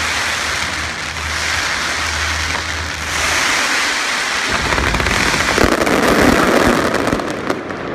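Aerial fireworks crackling in repeated waves; about halfway in, low booms join and the crackling grows denser.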